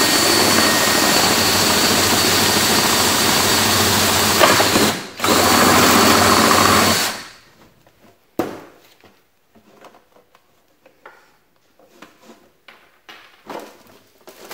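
Power drill spinning a 5/8-inch paddle bit through the wall of a plastic watertight box: a steady loud run, a brief stop about five seconds in, a second short run, then it cuts off at about seven seconds. After that come light clicks and knocks of the plastic box being handled.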